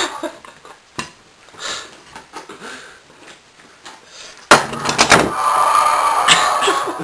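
Scattered knocks and clicks, then one loud bang about four and a half seconds in, followed by a couple of seconds of rough, hissing noise.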